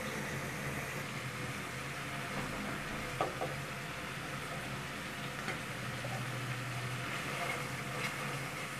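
Hilsa curry sizzling softly in an aluminium pot while a plastic slotted spatula stirs and lifts the fish pieces, with a few light knocks of the spatula against the pot.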